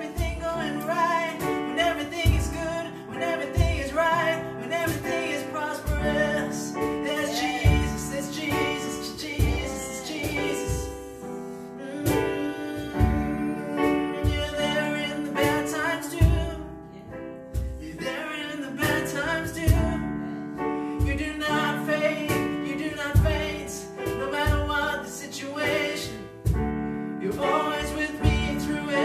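A worship song performed live: men singing over chords on a Technics electronic keyboard, with an acoustic guitar strummed alongside. Steady held chords and a regular low bass line run under the voices.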